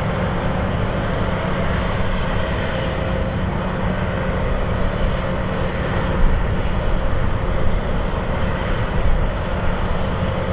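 Engine noise from a landing LATAM Airbus A321neo's Pratt & Whitney geared turbofans as it comes in and touches down, a steady jet sound that grows a little louder and more uneven about six seconds in, at touchdown.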